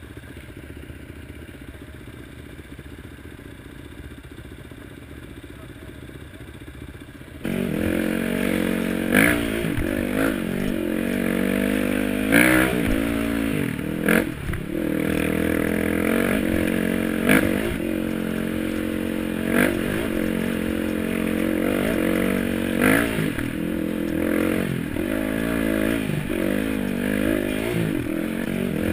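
Dirt bike engines idling at a stop. About seven seconds in, a sudden change brings a trail bike ridden close up along a rough dirt track, its engine revving up and down, with sharp clatters every few seconds from the bike going over the bumpy ground.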